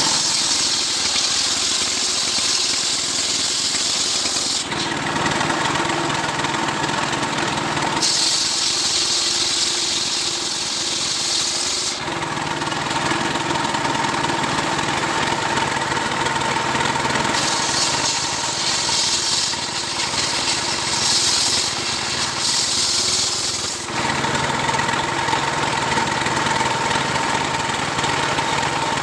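Stihl chainsaw running steadily at high speed, with three stretches of several seconds where a harsher hiss comes in as the chain cuts through a coconut palm trunk.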